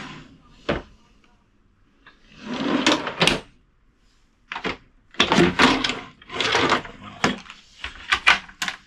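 Large motorhome kitchen drawers being pulled open and pushed shut several times: runners sliding, with sharp clicks and knocks as they stop.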